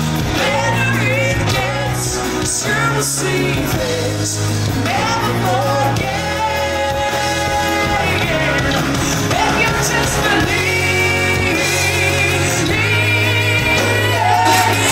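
A woman singing a song live into a microphone, with her own strummed acoustic guitar and a backing band, amplified through stage speakers. Her voice carries a wavering melody with long held notes over a steady bass.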